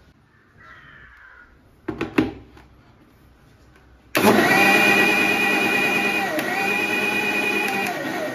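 Two knocks about two seconds in, then an electric mixer grinder (mixie) switches on and runs loud and steady, blending milk, crushed Oreo biscuits and ice cream into a milkshake. It breaks off for a moment midway, runs again, and winds down near the end.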